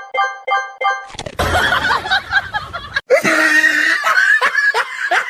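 A few quick repeated chime-like notes, then from about a second in people laughing, ending in a run of short rhythmic bursts of laughter.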